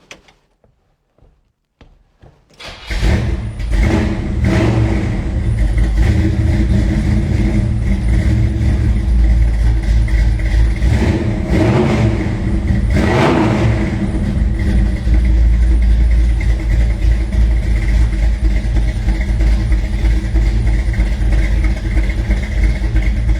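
1962 Chevrolet Bel Air's engine starting about two and a half seconds in, then running with a few blips of the throttle, one soon after starting and two near the middle. The freshly tightened fan belt runs without squealing.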